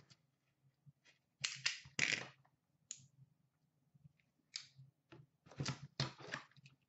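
Handling of plastic-wrapped trading card boxes: a few short, irregular rustles, scrapes and taps as the boxes are picked up and set down, with the densest cluster near the end.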